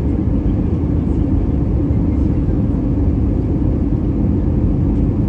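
Steady low rumble inside the cabin of an Airbus A320-214 in flight: its twin CFM56-5B engines and the airflow, heard from a window seat over the wing.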